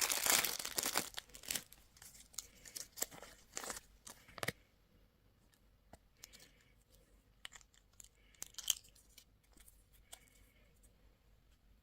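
Candy packaging being torn open and crinkled. A dense rustle for the first second or so gives way to scattered crackles, which thin to faint ticks after about four and a half seconds.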